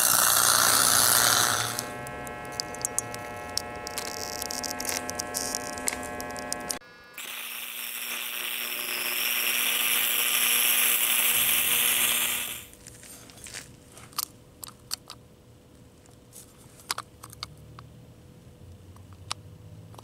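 Stick-welding arc hissing and crackling as a lawn tractor's differential gears are welded solid to lock the differential. It is loud for about two seconds, then quieter with a steady hum and crackle, then loud again for about five seconds. It stops in the second half, leaving small scattered ticks.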